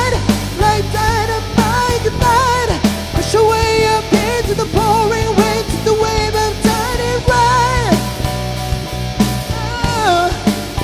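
Live rock band playing: drums, electric guitars, bass and keyboard, with a high, wordless vocal line over them that wavers with vibrato in short phrases.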